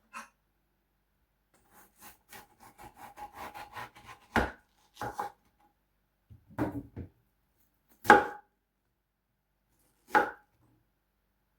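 Knife chopping watermelon: a run of quick light cuts, then five separate heavier chops, the loudest about eight seconds in.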